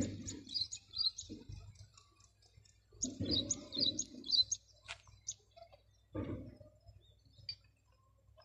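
A small bird chirping: two short runs of quick, high repeated notes about three seconds apart, then a few single calls, with some low noise beneath.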